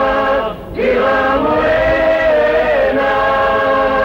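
A choir singing slow phrases of long held notes, with a brief break for breath near the start.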